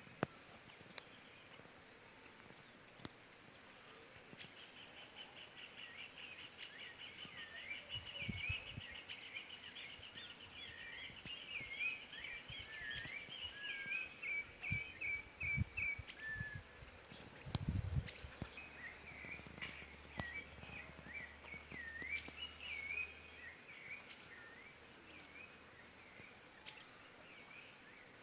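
Rufous-bellied thrush (sabiá-laranjeira) singing a long run of short swooping whistled notes, with a quick trill early on and a brief pause about two-thirds of the way in. A steady high insect drone runs underneath, and there are a few low thumps around the middle.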